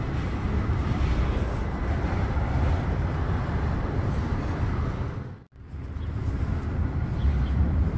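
Steady low outdoor rumble of town street background noise. It cuts out abruptly for an instant about five and a half seconds in.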